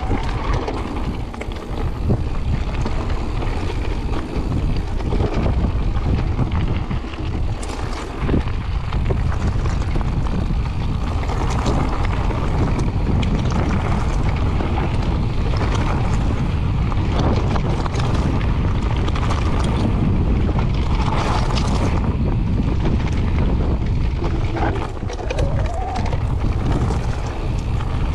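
Wind buffeting the microphone over the rumble of mountain bike tyres rolling fast across a loose stony trail, with occasional sharp knocks from stones and the bike.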